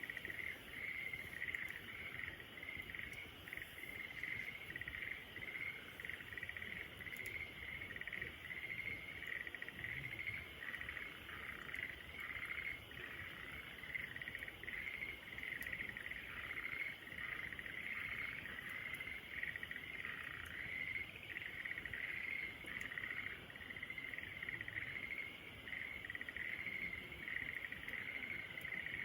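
Insects chirping in a steady, rapidly pulsing chorus, with a few faint crackles from a campfire.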